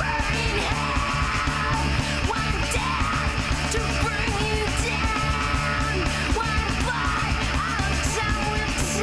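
Punk-metal band playing loud and fast over a steady, driving drum beat, with yelled vocals.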